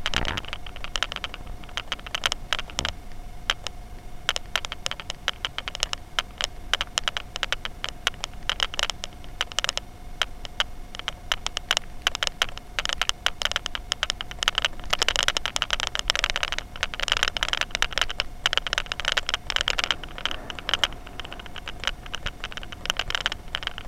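Skis scraping over packed snow on a descent: a dense, continuous crackle of small clicks, busier for a few seconds past the middle, with a faint steady tone underneath.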